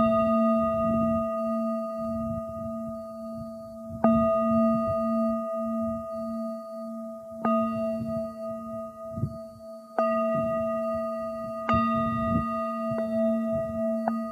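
A hand-held metal instrument struck about five times, a few seconds apart, with lighter taps near the end. Each strike rings on in several long, steady tones over a low pulsing hum. A gusty rumble of wind on the microphone runs underneath.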